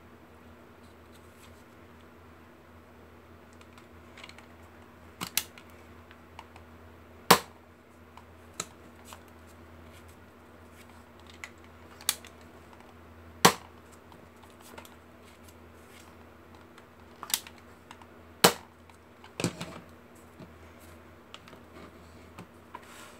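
Nerf Nanofire toy blaster being worked by hand: scattered plastic clicks as its priming handle and rotating barrel are moved, with three loud sharp snaps spaced several seconds apart.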